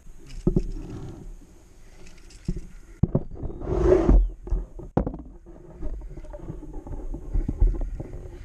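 Knocks and thumps on a canoe hull, mixed with the handling noise of a camera being moved around close by. A brief rushing burst comes about four seconds in.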